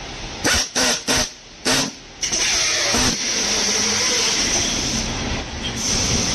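Handheld electric screwdriver whirring in four short bursts, then running steadily as it drives screws in.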